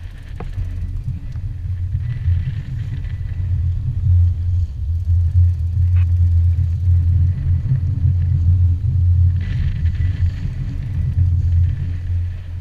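Boat's outboard motor running with a low, steady rumble, with a few brief spells of hiss about two seconds in and again near ten seconds.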